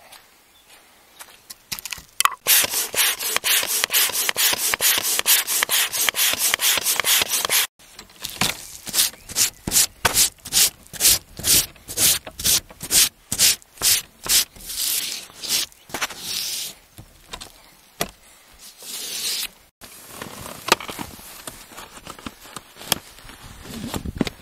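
Rhythmic back-and-forth scraping strokes, about four a second at first, then slower at about two a second, then irregular, breaking off abruptly twice.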